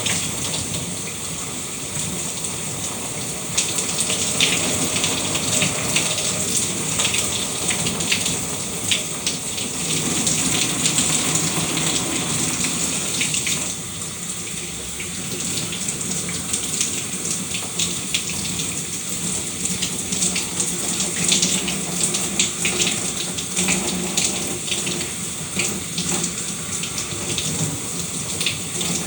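Shower running: water spraying and splattering steadily with an uneven patter of drops, its level dipping slightly now and then.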